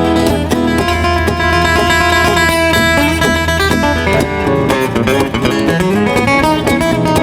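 Acoustic guitars playing an instrumental break in a bluegrass-style song: a strummed rhythm under picked melody notes, with no singing.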